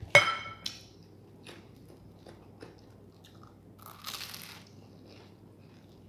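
A bite into a bread sandwich with egg, cheese and tomato gives a short crunchy crackle about four seconds in. Small chewing clicks come before and after it. A brief loud sound comes right at the start.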